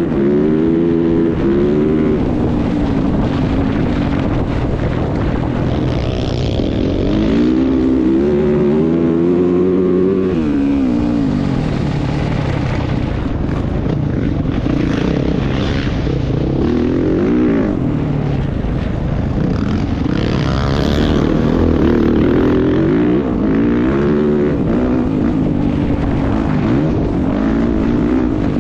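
Off-road racing motorcycle engine running hard under race load, its pitch climbing and dropping back again and again as the throttle is worked and gears change.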